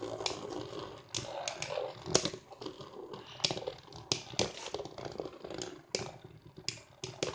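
Two metal Beyblade spinning tops whirring and grinding across a cardboard stadium floor, clashing with irregular sharp clicks, about a dozen in all.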